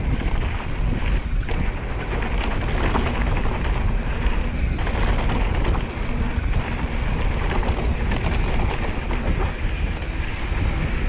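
Wind buffeting the camera microphone, with the knobby tyres of a Specialized Stumpjumper mountain bike rolling over a sandy dirt trail at speed. Near the end, light clicks and rattles come from the bike over bumps.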